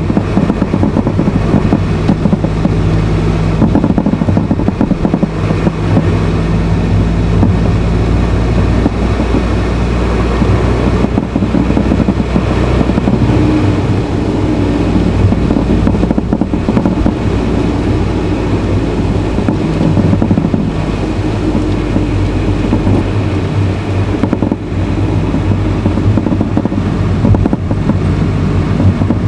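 Honda Fit (GE8) heard from inside the cabin while running: steady engine and road noise, with an engine hum that shifts in pitch now and then.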